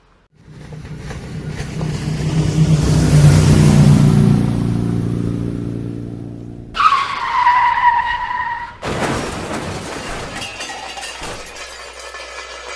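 Car crash sound effect: a car engine swells as the car approaches, then tyres screech for about two seconds. A loud crash with shattering glass and scattering debris follows.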